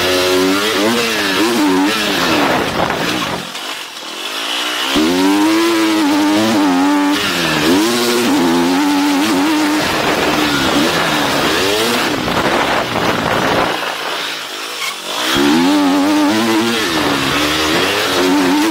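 Motocross bike engine, heard from the rider's helmet, revving up and down as the rider works the throttle through the gears, with wind rushing on the microphone. Twice, about four and fourteen seconds in, the throttle is shut for a second or so and the engine note drops before it pulls hard again.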